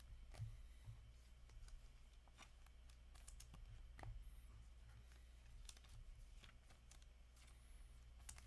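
Near silence: faint scattered clicks and rustles of hockey trading cards and pack wrappers being handled, over a low steady hum.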